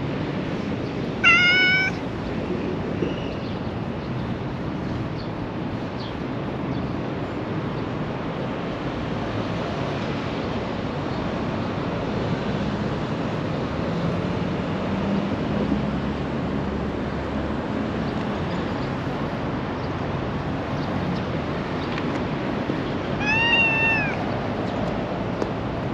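A domestic cat meowing for affection, twice: a short rising meow about a second in and a longer meow near the end that rises and falls. A steady low background rumble runs underneath.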